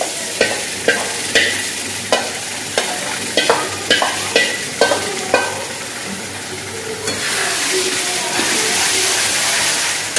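Onions and masala frying in oil in a pan, sizzling steadily while a spoon stirs them, its strokes knocking against the pan about twice a second. After about seven seconds the knocking stops and the sizzle grows louder and hissier.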